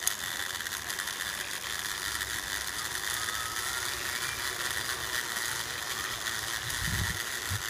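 Sky bicycle mechanism rolling along its steel cable, a steady fast ratcheting tick with a faint thin whine.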